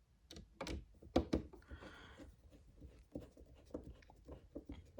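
Scattered small clicks and knocks with a brief scrape about two seconds in: a portable transistor radio's case and screws being handled while it is put back together by hand.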